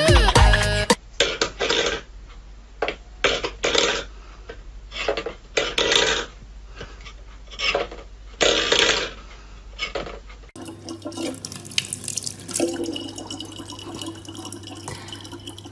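A metal pet bowl knocked and scraped about on a wooden floor in a string of short, sharp bursts. About ten seconds in it gives way to a thin stream of water running from a dispenser tap into a plastic bottle over a steady electric hum.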